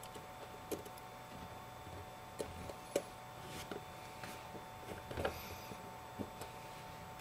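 Scattered small clicks and taps of tweezers and fingertips on a small metal shield plate and tiny screws inside an iPhone, the sharpest about three seconds in, over a faint steady hum.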